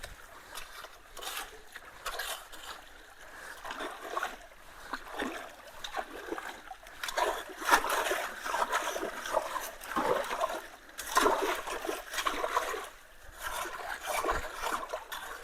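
Water trickling and splashing as leaves and debris are pulled from a clogged culvert, in irregular bursts with the loudest splashes about halfway through.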